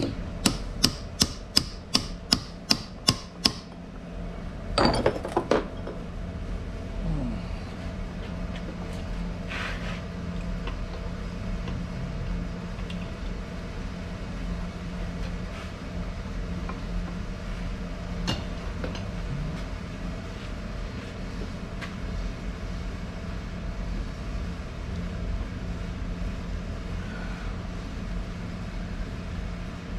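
About nine sharp hammer taps on metal in quick succession, roughly three a second, while the backlash of a Ford 9-inch ring and pinion is being adjusted. A short clatter follows a second or so later, then only a steady low hum.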